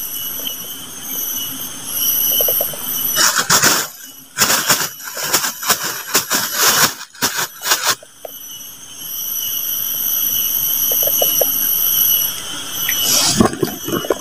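Insects droning with steady high-pitched tones. About three seconds in, and again near the end, loud irregular rustling and handling noise breaks in, from leaves and the fishing rod being handled at the microphone.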